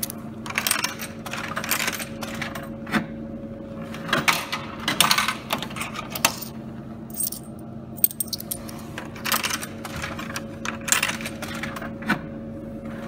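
50p coins clinking and clattering in a vending machine: they are fed through the coin mechanism and drop into the change-return cup, where a hand scoops them out, in repeated bursts. A steady low hum runs underneath.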